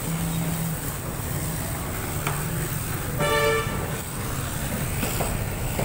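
A vehicle horn gives one short honk about three seconds in, over steady street traffic noise.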